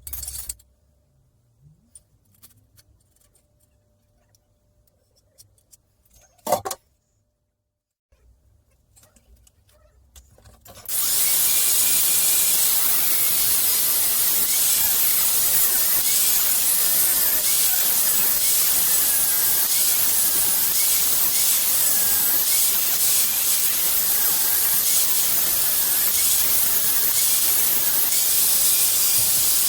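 Steel angle being cut with a power tool: a loud, steady hiss starts about eleven seconds in and carries on. Before that there are faint ticks and one sharp knock.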